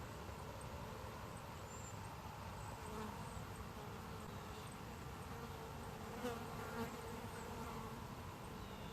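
A flying insect buzzing steadily over faint outdoor ambience, with a few faint high chirps and two brief louder moments past the middle.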